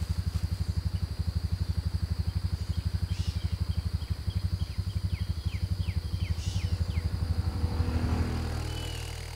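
Side-by-side utility vehicle's engine idling with a rapid, even pulse, fading out near the end.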